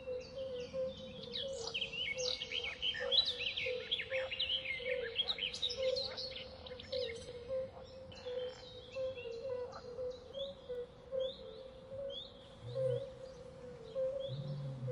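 Forest ambience of many birds chirping and calling, busiest in the first half, then settling into a repeated short falling call about twice a second. Under it runs a steady low drone that pulses in time.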